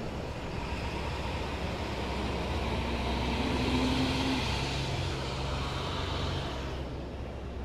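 Diesel bus engine pulling away under load. The hum and hiss swell in the middle and fall away near the end.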